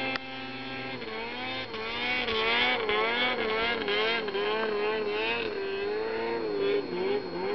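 Snowmobile engine running at high revs as the sled climbs a steep snow slope, its pitch wavering up and down with the throttle.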